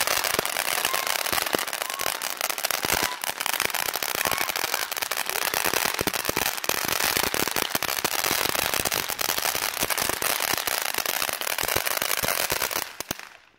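A lit consumer firework crackling with rapid, dense pops over a steady hiss, then dying out abruptly near the end as it burns out.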